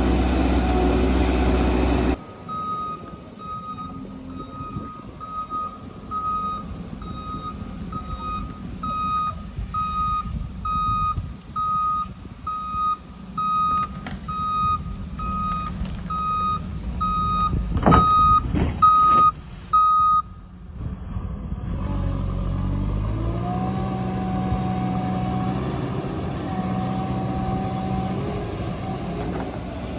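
Heavy equipment's reversing alarm beeping at one steady pitch, about one and a half beeps a second, over a running diesel engine, with a few knocks near the end of the beeping. Once the alarm stops, the engine revs up and runs steadily.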